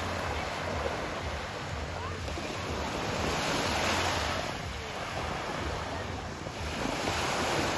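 Small waves breaking and washing up the sand at the water's edge, swelling about halfway through and again near the end, over a low wind rumble on the microphone.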